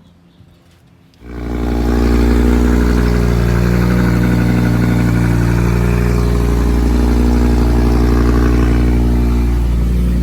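A loud motor or engine running steadily, starting abruptly about a second in.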